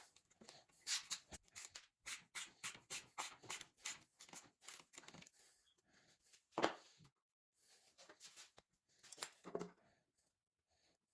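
A run of short scrapes and light knocks, several a second, followed by two louder single scrapes.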